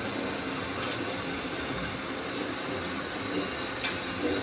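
Radio-controlled model construction vehicles running: a steady mechanical whirring and grinding, with two sharp clicks, one about a second in and one near the end.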